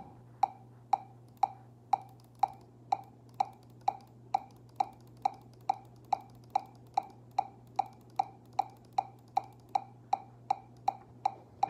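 Metronome click ticking steadily about twice a second over a low, steady hum from the idle electric guitar rig.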